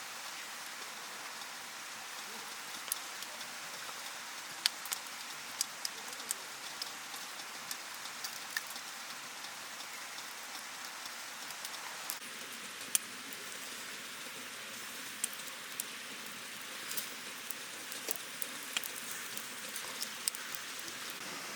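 Wood campfire burning: a steady hiss with irregular sharp pops and crackles.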